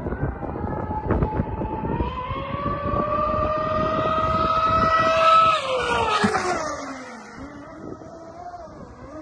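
Electric RC speedboat's LMT 3060/6 brushless motor running at full speed on a 14S pack, a high whine that climbs in pitch as the boat closes in. It is loudest about five seconds in, then drops sharply in pitch and fades as the boat passes and runs away.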